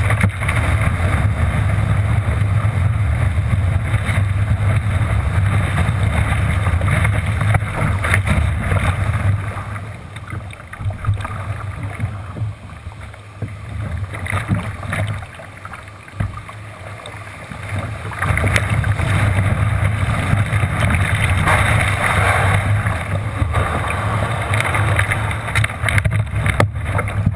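Rush of whitewater and surf around a Frenzy sit-on-top kayak riding breaking waves, with heavy wind rumble on the bow-mounted GoPro's microphone. It eases for several seconds in the middle, then comes back as loud as before.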